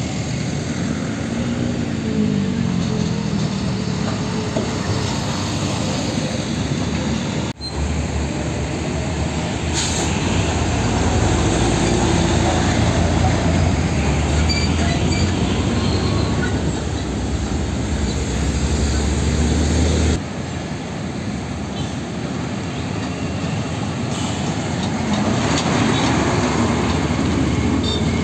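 Heavy diesel trucks driving past close by, one after another, around a bend. First a UD Trucks tractor unit's engine, rising and falling in pitch. After an abrupt break about 7.5 s in, a Hino truck with a box trailer passes with a deep engine rumble. After another abrupt change about 20 s in, a truck hauling a flatbed container trailer goes by.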